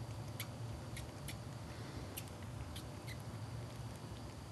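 Baby squirrel suckling from a bottle nipple: faint, irregular little clicks of its sucking, about two a second, over a low steady hum.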